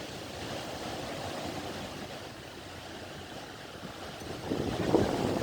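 Sea waves washing on the shore with wind buffeting the microphone, the wind rumble growing louder near the end.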